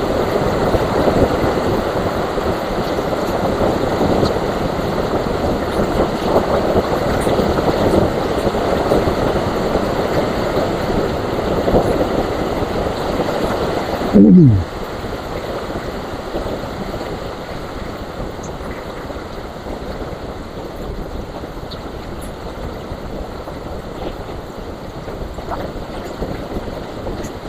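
Steady rain falling on coffee and nutmeg trees, a dense even hiss. About halfway through there is a brief loud tone falling sharply in pitch, and the rain then carries on at a softer level.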